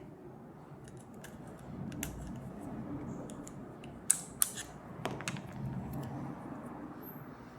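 Small metal parts of a compressed-air quick coupler being handled, with light clicks and scraping. Two sharp clicks come close together about four seconds in.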